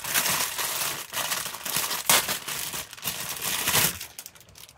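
Plastic packaging crinkling and rustling in irregular handfuls as a silicone resin mold is unwrapped; the crinkling dies down about four seconds in.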